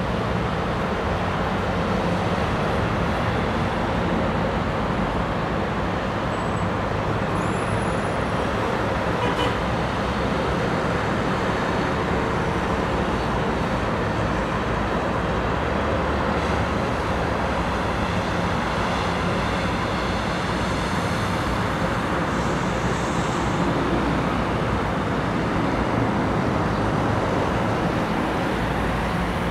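Steady distant city road traffic: a continuous wash of car and bus engines and tyres from the streets below, with no single vehicle standing out.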